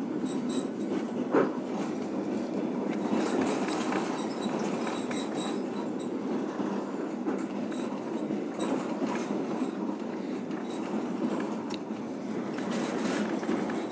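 Passenger train in motion, heard from inside the carriage: a steady rumble of the wheels on the rails with scattered clicks and knocks. One sharper knock comes about a second and a half in.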